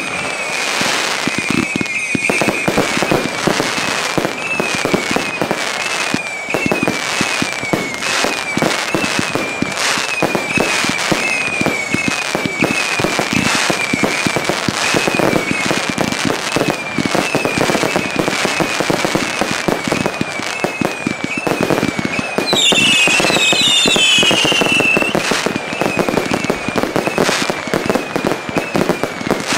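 Fireworks display: a dense, continuous crackle of many small reports from crackling and glitter shells, with bursts of aerial shells. About 23 seconds in, several high whistles falling in pitch sound together, the loudest part.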